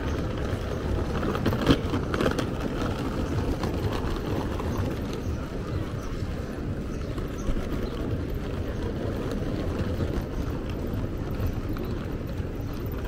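Steady urban ambience of traffic and people around a pedestrian, with one sharp knock a little under two seconds in.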